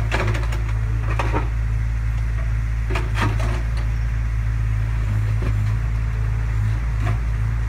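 JCB mini digger's diesel engine running steadily, with a few short knocks and scrapes as the bucket works a pile of broken brick and rubble.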